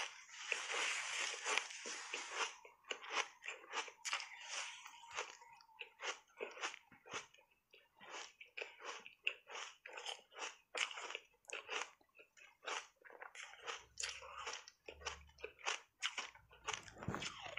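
Refrozen block ice coated in matcha powder being crunched and chewed in the mouth, close to a clip-on microphone: a steady run of sharp crunches, densest in the first couple of seconds.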